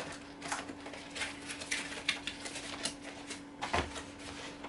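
Packaging of a tripod box being opened by hand: scattered light clicks and rustles, with a heavier knock near the end. A faint steady hum runs underneath.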